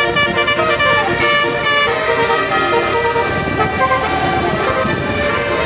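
Bus telolet horn, a multi-tone air horn, playing a tune as a run of loud, steady notes that change pitch step by step, over road traffic noise.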